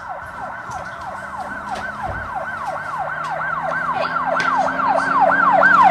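Emergency-vehicle siren in a fast yelp, its pitch sweeping up and down about three times a second and growing steadily louder.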